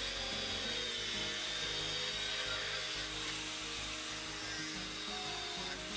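Abrasive cut-off wheel grinding through a steel rod: a steady, harsh hiss. Background music plays underneath.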